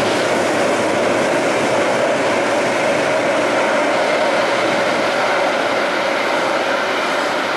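Light rail train pulling out of an underground station into the tunnel: a steady, loud rumble of steel wheels on rail with a droning hum, echoing off the station walls.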